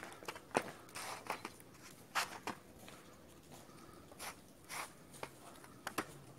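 Footsteps crunching on packed snow, an uneven series of short crunches about every half second as people walk.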